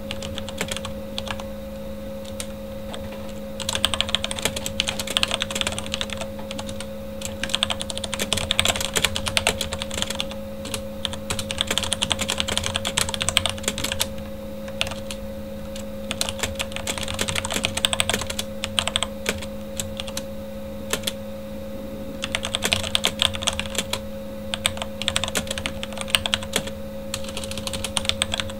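Typing on a Corsair K70 mechanical keyboard with Cherry MX Red linear switches: rapid runs of key clacks broken by short slower stretches. A steady computer-fan hum runs underneath.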